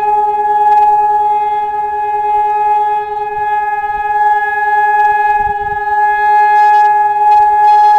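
Civil defence air raid siren held at a steady high pitch during a siren test, its loudness wavering slightly.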